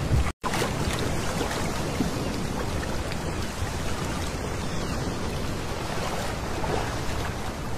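Small sea waves lapping and washing over a pebble shore, a steady rushing hiss of water. The sound cuts out for an instant less than half a second in.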